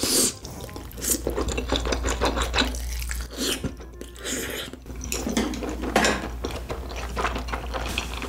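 A person biting into and chewing a soup-soaked dumpling, with irregular small clicks and smacks of the mouth.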